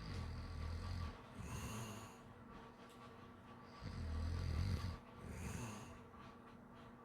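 Slow, regular snoring: two snores about four seconds apart. Each is a low rumbling snore followed by a hissing breath.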